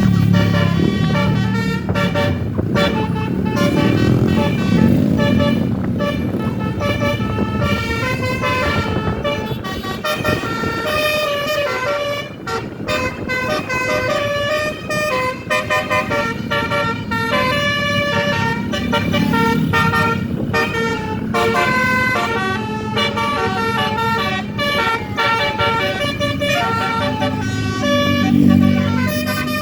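Tourist bus's Basuri telolet multi-note air horn playing a tune, its notes changing several times a second, over the bus engine running.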